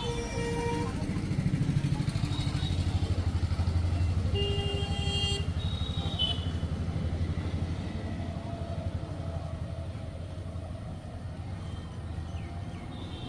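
An engine running steadily with a fast, even chug, louder for a few seconds near the start and then easing off.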